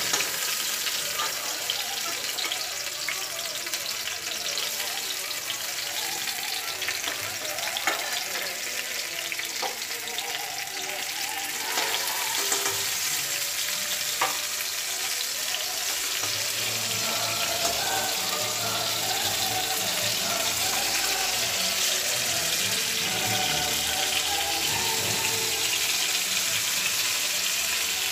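Stuffed tomatoes shallow-frying in hot oil in a steel pan, a steady sizzle. There are a few sharp clinks of a metal spoon against the pan as they are turned.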